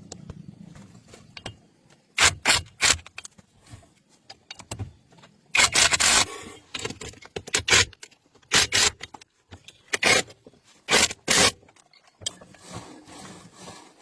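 Short, sharp scraping strokes, about a dozen, coming in pairs and small groups with pauses between, one of them longer than the rest.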